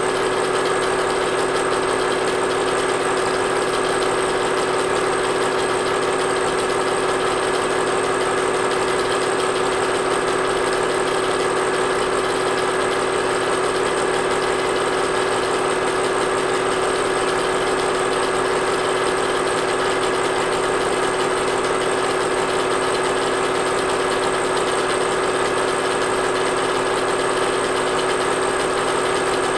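Film projector running while it shows a silent home movie: a steady, unchanging mechanical whirr from its motor and film mechanism, with a few fixed tones in it.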